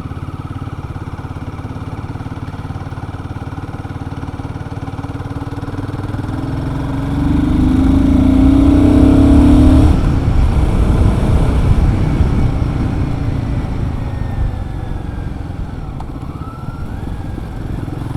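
Royal Enfield Guerrilla 450's single-cylinder engine running on the move, opening up about six seconds in with a rising pitch as it accelerates, loudest for a couple of seconds, then easing off again.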